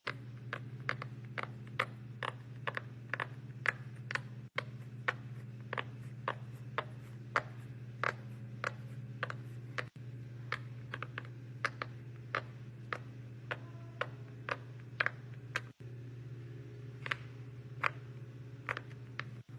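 A small clicky fidget toy being clicked over and over, roughly two to three sharp clicks a second, over a steady low hum.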